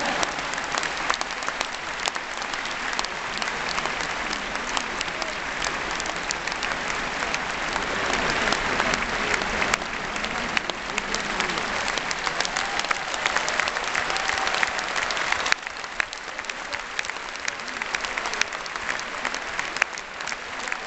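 Large arena audience applauding, a dense steady clapping that drops suddenly in level about fifteen seconds in.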